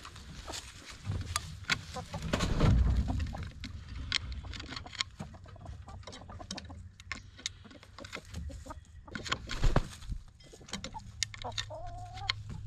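Backyard hens clucking as they forage, with many short sharp clicks of scratching and pecking in dry leaves and claws on a wooden coop ramp. One hen gives a drawn-out wavering call near the end. A couple of dull low bumps come about three seconds in and again near ten seconds.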